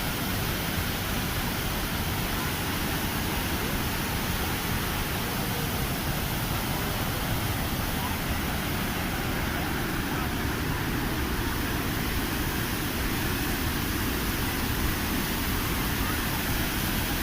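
Waterfall with steady, loud rushing water and a low rumble underneath.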